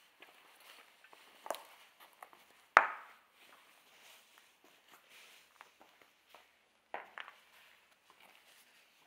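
Footsteps scuffing and crunching over broken ceiling tiles and rubble on a hard floor, with a few sharper knocks as debris is stepped on. The loudest is a single crack about three seconds in that rings briefly in the empty room.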